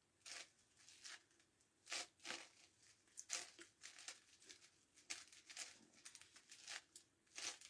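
Faint, irregular clicks and clacks of a plastic 9x9x9 Rubik's Cube as its layers are turned by hand, a dozen or more short snaps at an uneven pace.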